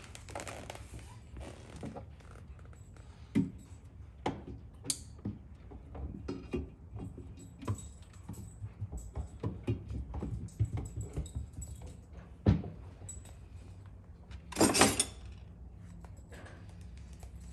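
Irregular small metallic clinks and knocks of bolts and hand tools as a throttle pedal is fitted by hand, over a steady low hum. A louder rustling scrape comes about fifteen seconds in.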